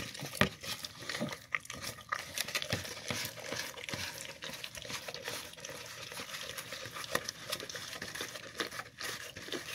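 A dog eating soft, wet food from a plastic tub: rapid smacking and licking, with many small irregular clicks.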